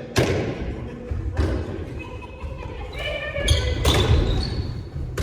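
Several sharp thuds echoing in a large hall, about four in all, with voices in between.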